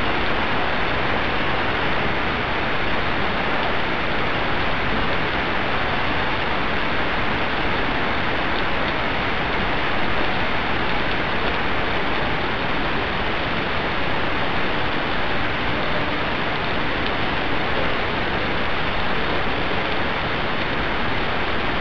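Rain falling steadily on a wet cobbled street, a dense, even hiss.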